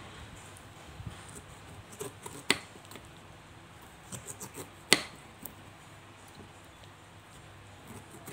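Small paring knife cutting the eyes out of a peeled pineapple over a wooden cutting board: quiet cutting and scraping with a few sharp clicks, the two loudest about two and a half and five seconds in.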